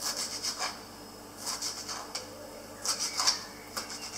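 Kitchen knife chopping parsley on a cutting board: about four short bursts of quick blade taps against the board, with brief pauses between, as already-cut leaves are chopped finer a second time.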